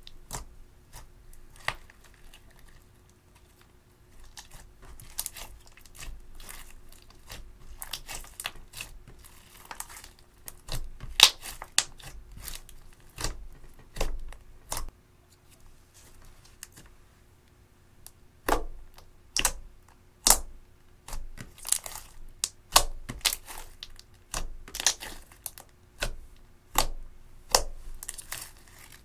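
Hands kneading, folding and poking clear slime with crushed eyeshadow mixed in: irregular sticky clicks, pops and crackles, coming louder and thicker in the second half.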